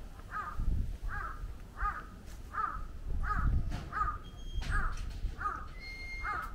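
A bird calling over and over: nine short calls in a steady series, each rising and falling in pitch, a little under a second apart.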